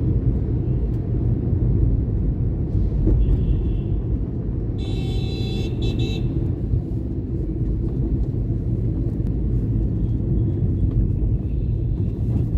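Steady low rumble of road traffic and engines heard from a moving vehicle. A vehicle horn sounds for about a second and a half near the middle, just after a shorter, higher beep.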